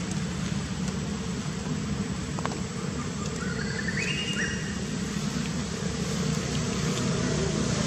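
A steady low engine hum from a running motor, unchanging throughout, with a faint rising whine about four seconds in.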